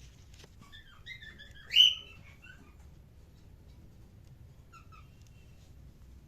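Cockatiel chirping: a quick run of short chirps with one loud chirp in the middle, then a couple of faint chirps later.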